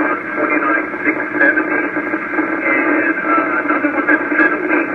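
Received 10-meter FM repeater audio from a transceiver's speaker: a station's voice, narrow and noisy, relayed over the repeater.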